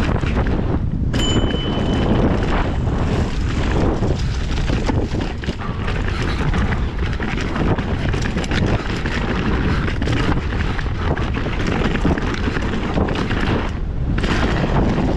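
Mountain bike running fast down a rocky, rooty trail: heavy wind noise on the microphone with constant clatter and rattling from the bike. A brief high squeal sounds about a second in.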